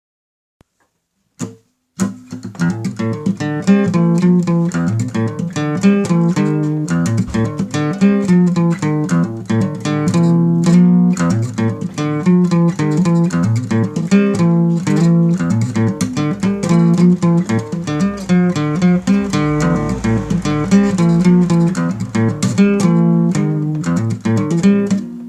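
Music led by a plucked guitar playing a quick, steady run of notes, starting about two seconds in after a short silence.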